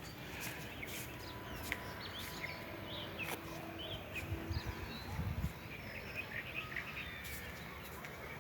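Outdoor ambience in light rain: a steady hiss with many short bird chirps scattered throughout.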